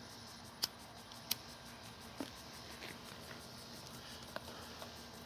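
Quiet background broken by a few sharp clicks, the two loudest about a second in, then fainter ticks later on.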